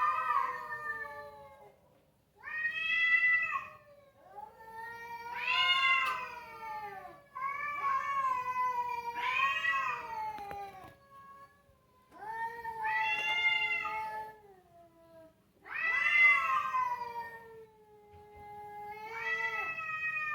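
Cats caterwauling at night: about eight long, drawn-out angry yowls, one after another, each wavering up and down in pitch, like a child crying.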